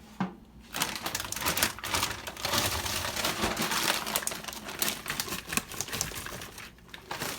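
Plastic bag of frozen chicken nuggets crinkling, with rapid clicking and clattering as the hard nuggets are handled and tipped out. The sound starts under a second in and stops about a second before the end.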